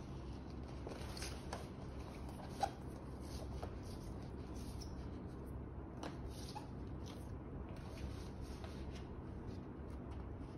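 Glossy printed paper album inserts and sleeves being handled and unfolded: faint rustling and light crinkling, with a sharper click about two and a half seconds in.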